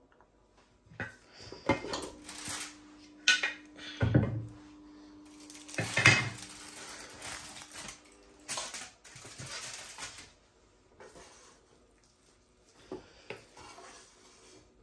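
Glass pan lid and wooden spatula clattering against a metal pan as the lid is taken off, several sharp knocks and clinks, then a wooden spatula scraping and turning cooked rice in the pan, softer, near the end.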